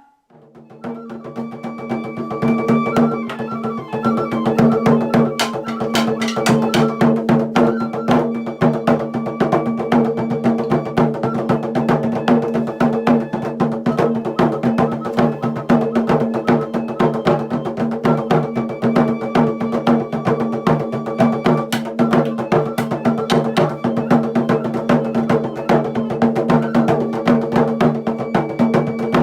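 Percussion-led music: fast wood-block and drum strokes over a steady low drone.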